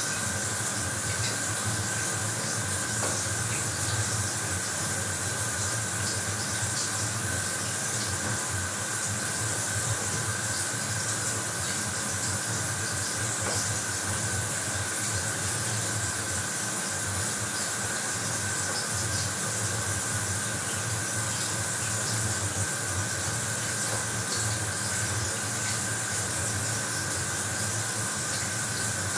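Bathroom shower running steadily, water spraying and hissing with no breaks.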